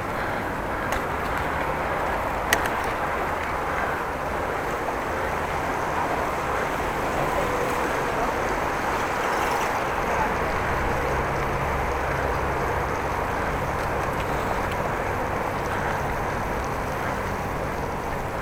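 Steady road noise from a bicycle being ridden, with one sharp click about two and a half seconds in.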